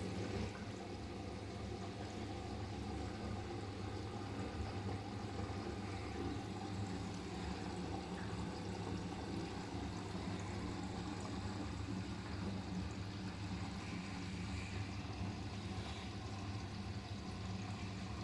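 Siemens iQ500 front-loading washing machine taking in water: a steady hum, like an open inlet valve, under the rush of water pouring into the drum. It starts suddenly just before and runs evenly on.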